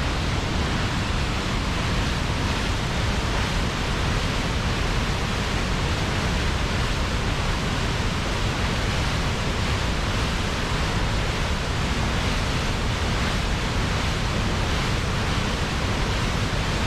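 Reekie Linn waterfall on the River Isla, swollen with storm rain, pouring over the falls: a steady, loud rush of falling water.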